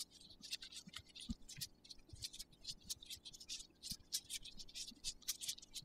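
Faint scratching with many quick light ticks: a thin metal rod working against a hydraulic disc brake caliper to remove the retainer that holds the piston block.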